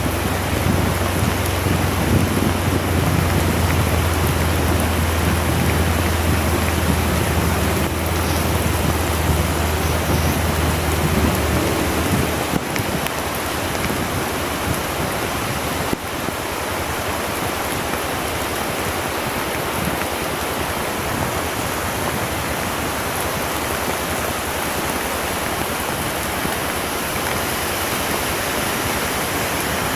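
Very heavy rain pouring down in a dense, steady hiss. A motorcycle engine hums low and steady under it for the first twelve seconds or so, then drops away, leaving only the rain.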